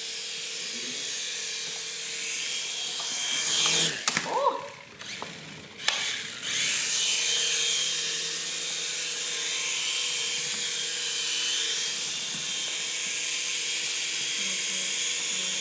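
The small electric motors and spinning rotors of a 3.5-channel toy RC helicopter, whining steadily. About four seconds in the whine drops away amid a few knocks, then it picks up again about two seconds later and keeps running.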